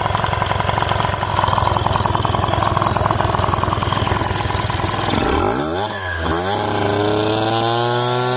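Honda Dio's 50 cc two-stroke engine running with the variator cover off, the belt spinning the pulleys. It runs steadily, then about five seconds in is revved: the pitch climbs quickly, dips briefly, then keeps rising slowly as the throttle is held.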